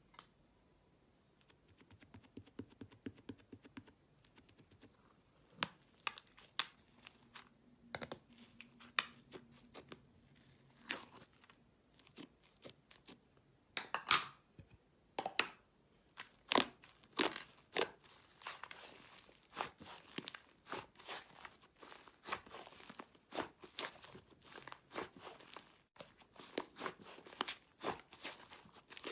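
Clay-mixed slime being pressed, stretched and poked by hand, giving a run of sticky crackling pops and tearing sounds that come sparsely at first and then thick and fast from about halfway through.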